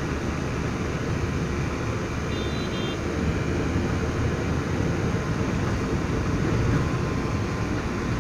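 Steady engine and road noise heard from inside a moving car.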